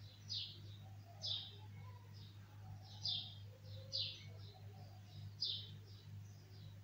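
Caged bulbul giving short, sharp chirps, each falling in pitch, repeated about once a second, over a steady low hum.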